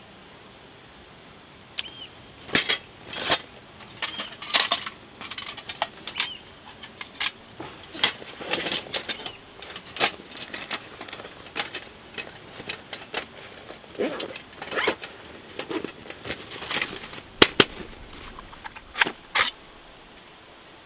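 Light metal clinks and rattles of a folding stove's wire grill grate being handled and packed away in a canvas bag, in irregular bursts of short, sharp clicks with handling rustle in between.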